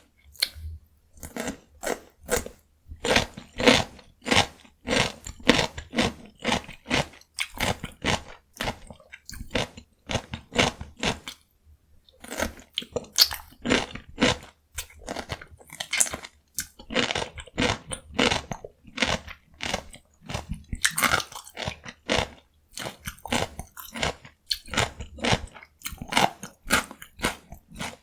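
Close-miked crunching and chewing of raw cucumber dipped in gochujang: rapid crisp crunches, several a second, with a brief pause about halfway through.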